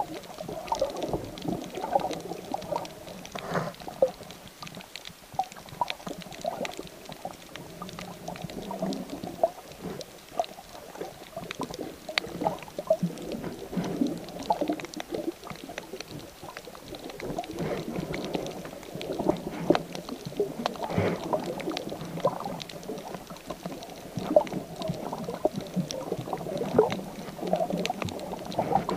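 Muffled underwater sloshing and gurgling of water against a handheld action camera held below the surface, with frequent short sharp clicks and pops scattered throughout.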